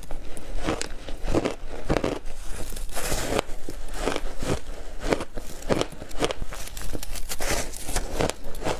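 Powder-coated block ice being bitten and chewed: a fast, irregular run of sharp crunching cracks, several a second.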